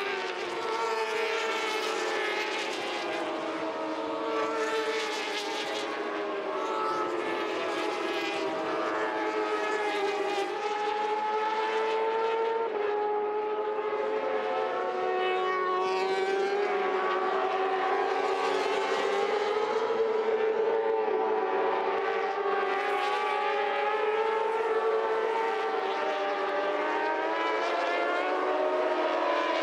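Several Moto2 racing motorcycles at race pace, their engines revving high and rising and falling in pitch as the riders shift and brake through the corners, several bikes overlapping.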